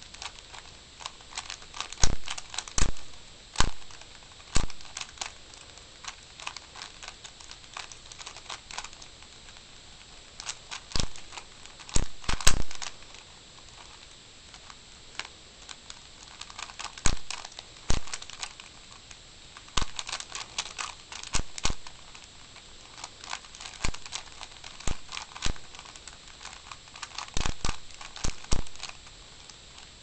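Rubik's Cube being turned by hand: irregular plastic clicks and clacks as its layers snap round. The clicks come in quick runs separated by short pauses.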